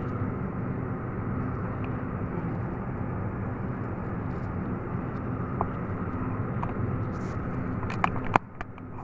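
A steady low hum and rush of kitchen machinery by the gas stove. It cuts off suddenly about eight seconds in, then come a few light clicks and knocks.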